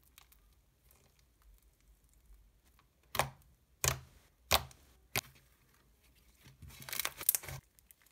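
Thick, creamy pink slime being worked by hand: four sharp pops about two-thirds of a second apart as fingers poke into it, then a short burst of crackling as it is stretched near the end.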